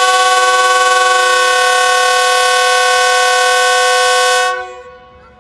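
Diesel locomotive air horn sounding its departure signal: one long, steady multi-tone blast that cuts off about four and a half seconds in.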